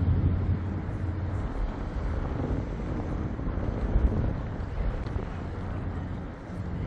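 Low steady engine drone, with wind buffeting the microphone. The drone is strongest in the first second or so and then eases.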